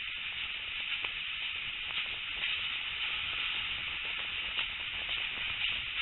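Steady rushing hiss of a steam-hauled passenger train in motion, heard from an open carriage window, with faint irregular clicks.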